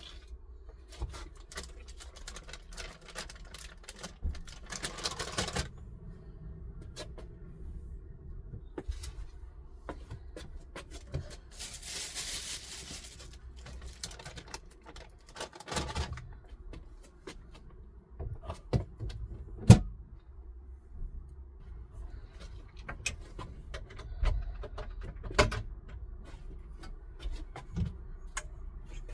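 Scattered clicks, knocks and rustles of things being handled in the small space of a campervan, with a brief hiss about twelve seconds in and a few sharper knocks in the second half.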